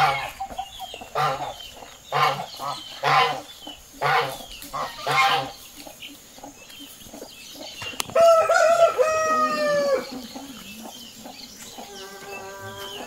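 Chickens calling: a hen clucking in short calls about once a second for the first five seconds, then a rooster crowing about eight seconds in, a long call that falls away at its end, and another drawn-out call near the end.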